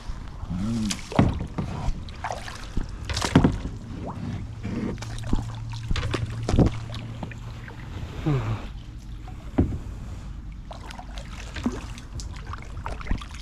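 Irregular knocks and clatters on a fishing kayak, about a dozen sharp hits spread through, the loudest about three seconds in.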